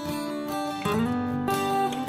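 Background music with strummed guitar chords.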